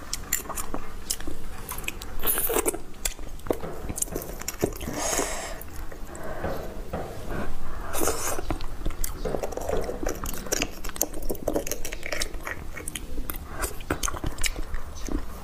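Close-miked eating of beef bone marrow: wet chewing and mouth smacks with many short sharp clicks, and a few brief slurps as marrow is taken off a metal spoon.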